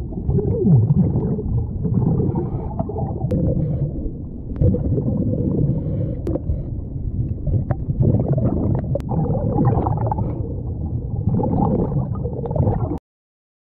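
Muffled underwater noise picked up by a submerged camera: a steady low rumble and gurgling from movement in the water, with a few sharp clicks. It cuts off suddenly near the end.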